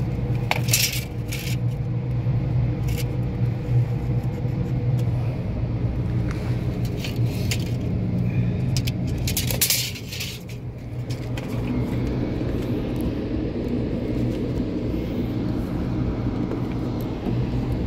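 Steady low hum of an engine running, with a few brief rattling scrapes, once about a second in and again around the middle.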